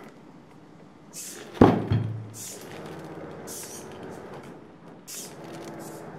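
Heavy iron dumbbell, gripped by a robotic hand, set down with a heavy thud on a table about a second and a half in, followed by a smaller knock. After it, a steady hum with short bursts of hissing, from the arm's water-driven powering system and valves.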